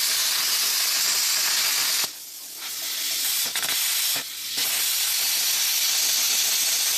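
Handheld air plasma cutter cutting through the steel brackets of an air compressor tank: a loud, steady hiss that stops briefly about two seconds in and again about four seconds in, then carries on.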